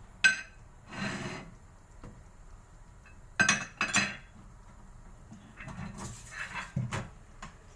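Ceramic plates and dishes being handled at a kitchen sink, clinking and knocking together. There is a sharp ringing clink just after the start and two more about three and a half and four seconds in.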